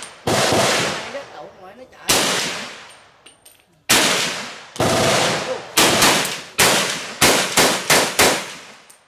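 M1 carbine firing semi-automatically: about a dozen shots, each with a ringing echo. The first few come a couple of seconds apart, then they quicken to several a second near the end.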